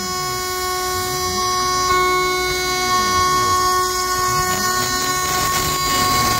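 CNC router spindle whining steadily as an end mill takes a finishing pass around a pocket in aluminum, with a lower tone that rises and falls over and over as the machine moves along the toolpath.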